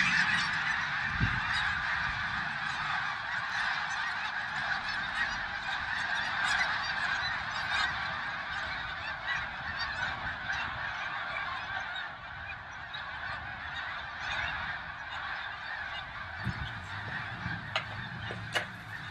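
A large flock of wild geese in flight, many birds honking at once in a dense, continuous chorus that slowly grows fainter.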